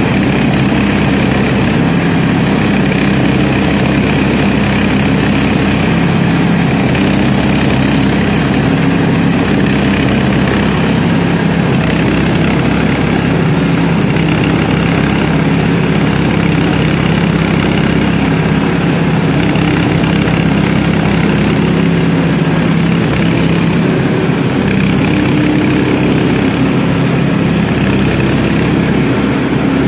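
Small petrol engine running steadily, driving the beater drum of a multi-crop legume thresher as dry stalks are fed into it.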